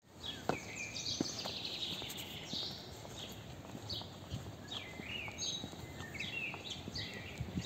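Several birds chirping and singing in the trees, repeated short calls and falling notes, with footsteps on a paved path.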